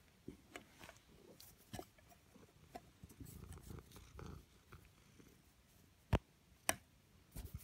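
A house cat purring softly right at the microphone, with rubbing and knocking noises as it nuzzles the phone. Two sharp taps a little after six seconds in are the loudest sounds.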